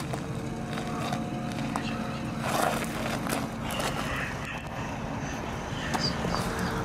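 Car engine idling: a steady low hum under an even wash of noise, with a few faint clicks.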